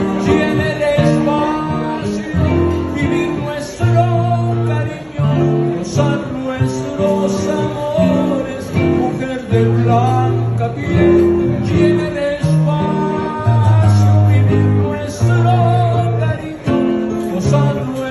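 Acoustic guitar played live in a slow romantic ballad, a melody line over held bass notes.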